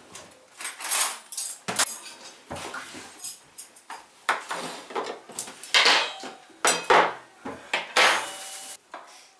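Plates and cutlery clinking and clattering as a table is laid: a run of separate sharp knocks and clinks, the loudest in the second half.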